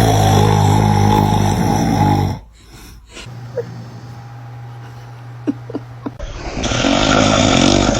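A man snoring loudly: a long buzzing snore for about two seconds, then a lull of a few seconds, then another, breathier snore starting near the end.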